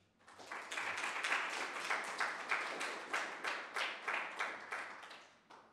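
Audience applauding: many hands clapping together, building up over the first second and dying away about five seconds in.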